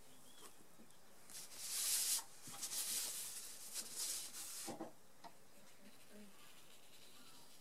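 A sheet of drawing paper sliding and being turned on a tabletop, rustling and scraping for about three and a half seconds from a little over a second in, loudest near the start of it.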